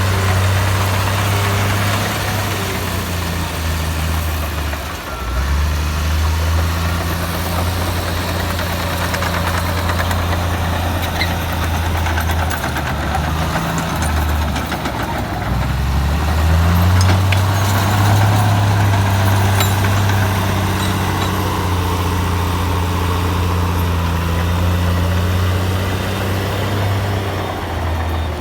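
Komatsu bulldozer's diesel engine running steadily under load, its pitch dipping and picking up again a few times as the load changes.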